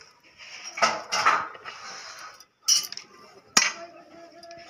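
Cut crab pieces being swished by hand in a steel plate of water: water splashing and hard shells clattering against the metal, with a few sharp knocks and a single sharp click about three and a half seconds in.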